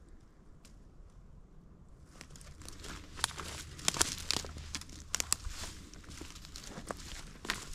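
Footsteps crunching through dry twigs, brush and fallen leaves, with sharp snaps of small sticks. Faint at first, then steady crackling from about two seconds in.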